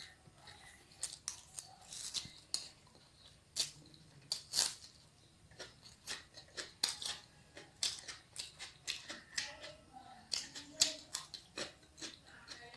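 Close-up eating sounds: chewing a mouthful of chow mein, with many irregular sharp, wet mouth clicks and smacks.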